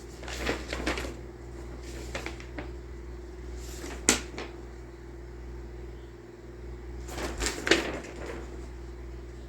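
Paper instruction sheets being handled and shuffled: several short rustles, with a sharp tap about four seconds in.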